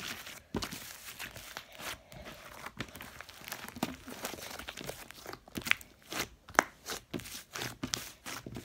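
Slime being stretched and pressed by hand, with irregular small pops and crackles as air bubbles in it burst.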